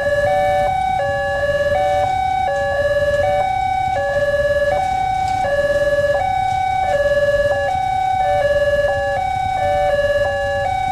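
Two railway level-crossing warning sirens sounding at once, each alternating between a high and a low electronic tone. They are out of step, so the two-tone patterns overlap and clash.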